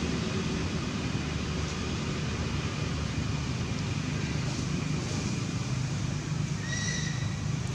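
Steady outdoor background noise with a faint low hum, and one short high-pitched call near the end.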